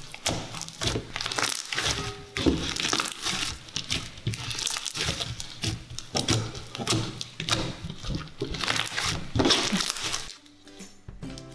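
Slime being squished and stretched by hand, with dense crackling and clicking from the foam-ball add-ins, over background music; the crackling stops near the end, leaving only the music.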